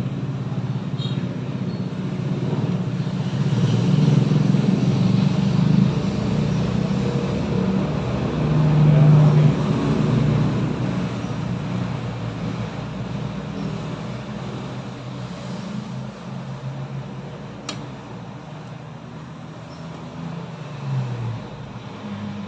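Road traffic: a motor vehicle's engine hum swells, is loudest a few seconds in, then fades away over the second half. A single sharp click sounds near the end.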